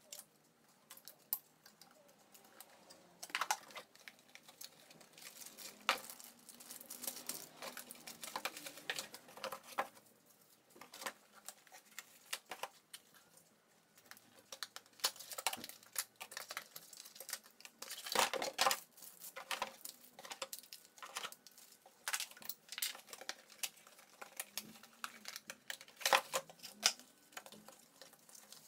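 Cardboard and paper packaging handled by hand: scattered light knocks, scrapes and rustles as parts are lifted out of a moulded pulp tray and box, with sharper knocks about 18 and 26 seconds in.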